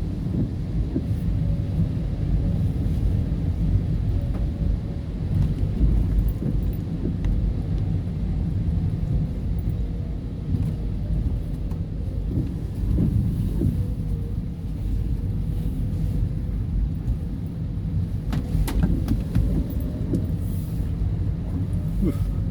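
Steady low engine rumble, with a faint steady hum above it and a few light clicks near the end.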